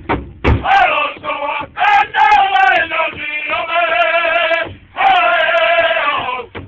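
Powwow drum group singing together in long, wavering held notes, the lead line pitched high. A few heavy beats on the big powwow drum, struck with sticks, sound right at the start.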